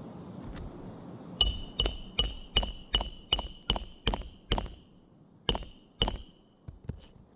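Hammer driving a roofing nail into a replacement shingle: a run of about nine quick strikes with a metallic ring, then two more strikes and a few light taps near the end.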